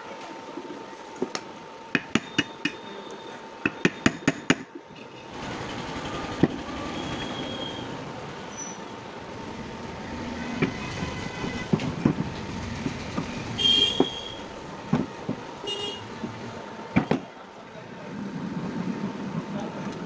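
Metal parts of a ceiling fan motor being handled: a quick run of sharp clicks and taps in the first few seconds, then scattered knocks. Underneath is a steady background of street traffic with a couple of short horn toots in the second half.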